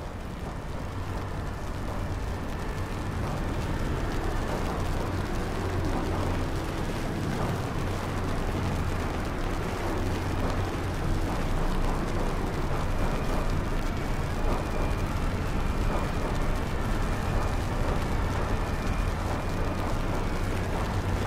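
A dense, low rumbling noise that swells over the first few seconds and then runs on steadily.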